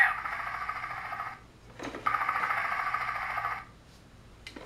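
Tidmouth Sheds toy playset playing a tinny electronic sound effect through its small speaker: a steady, rapidly pulsing buzz in bursts of about a second and a half, with a sharp plastic click before each new burst.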